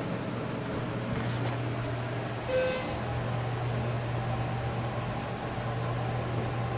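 Schindler 330A hydraulic elevator car running with a steady low hum as it travels down. A brief electronic tone sounds about two and a half seconds in.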